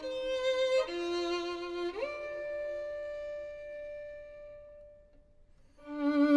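Slow solo violin music: two held notes, then one long note of about three seconds that fades away, a brief pause, and the playing picks up again near the end.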